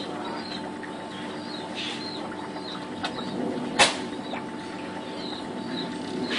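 Small bird peeping repeatedly in short, high chirps over a steady low hum, with one sharp click about four seconds in.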